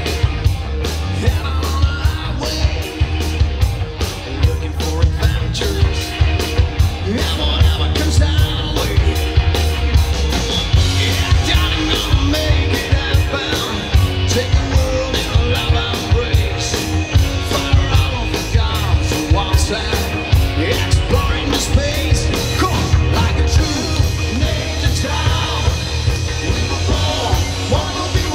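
Live rock band playing: electric guitar through a Marshall stack, bass and a drum kit keeping a steady beat, with a male singer shouting and singing into a microphone.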